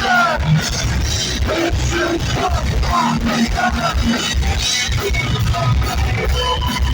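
Heavy metal band playing live: distorted electric guitars, bass and drum kit, loud and continuous, with no vocals.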